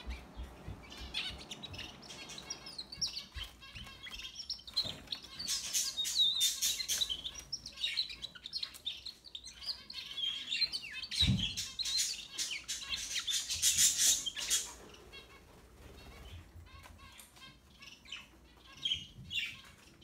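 Domestic canary singing a long song of rapid high trills and chirps, loudest in the middle, that breaks off after about fifteen seconds and gives way to a few softer chirps. A single dull knock comes partway through.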